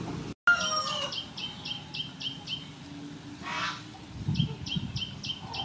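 Birds calling in the background. The sound cuts out for an instant near the start, and a call follows. Then come two runs of short, evenly spaced high notes, about four a second, with a few soft knocks from handling in between.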